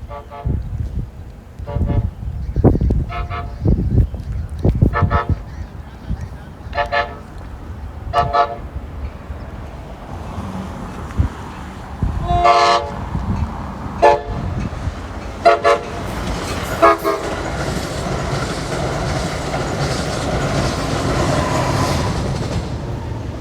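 A string of short honking toots, one every second or two. Then from about two-thirds of the way in, the rising, steady rushing rumble of a passing train.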